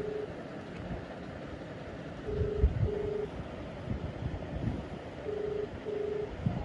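Telephone ringback tone playing from a mobile phone's speaker: a low double ring, two short beeps close together, repeating about every three seconds. It means the outgoing call is ringing at the other end and has not yet been answered.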